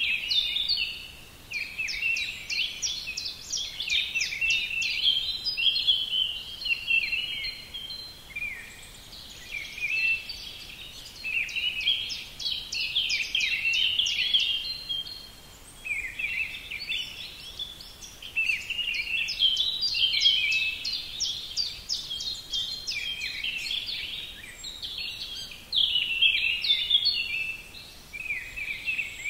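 Birdsong: fast, high twittering and trilled phrases a few seconds long, following one another with short breaks.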